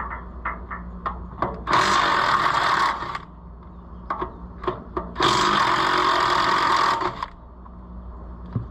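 Impact wrench run in two bursts of about a second and a half each, working on the tractor's wheel nuts, with light metal clanks between the bursts.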